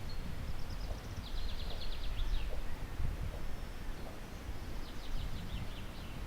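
A small songbird singing two phrases, each a rapid series of high notes lasting about a second and a half, the second phrase near the end. Under them runs a low, uneven rumble.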